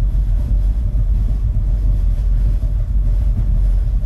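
Deep, steady bass rumble of a movie soundtrack played loud through a Klipsch R10SW subwoofer refitted with a Martin Logan Dynamo 700W driver. It is turned up to just below the point where it distorts.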